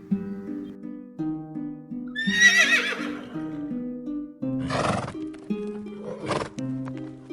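A horse whinnies about two seconds in, a high, quavering call lasting about a second. It is followed by two short breathy blasts, all over background music of plucked notes.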